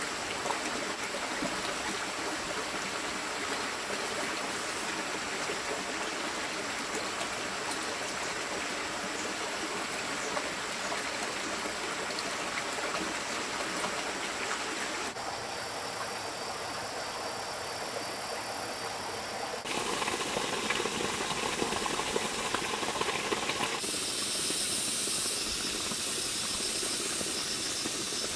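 Steady rushing of flowing stream water, its tone shifting abruptly a few times. A high, fast-pulsing insect chirr joins in the last few seconds.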